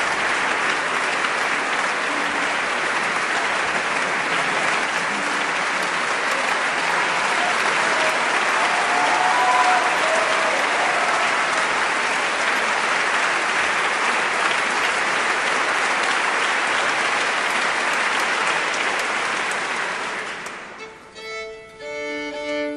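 Concert hall audience applauding steadily. About twenty seconds in the applause dies away and a violin sounds a few short bowed notes.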